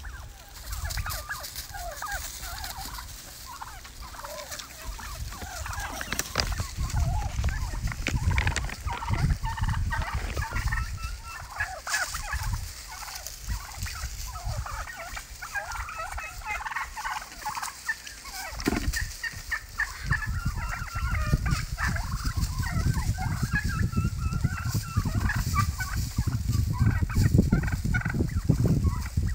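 A flock of wild turkeys feeding and calling continuously, many short overlapping calls. Underneath there is a low rumble that grows stronger over the last third.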